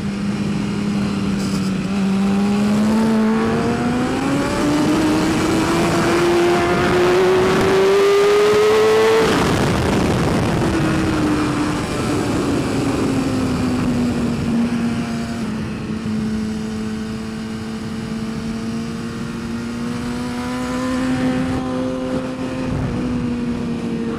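2012 BMW S1000RR's inline-four engine at racing speed, heard from on board. The revs climb steadily for about seven seconds, then drop sharply about nine seconds in, and the engine runs lower and fairly steady for the rest.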